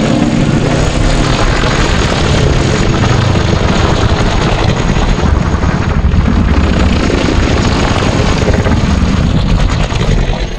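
A dragon sound effect: a long, loud, rumbling, rushing noise that cuts off suddenly at the end.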